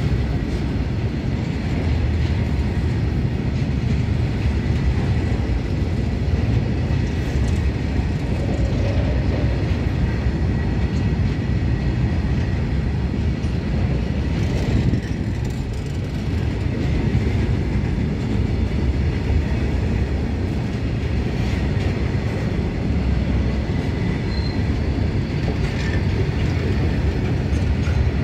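Covered goods wagons of a freight train rolling steadily past at close range: a continuous loud rumble of steel wheels on the rails.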